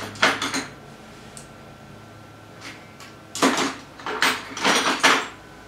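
Clattering and rustling of objects being handled: one short burst at the start, then a run of several more from a little past halfway.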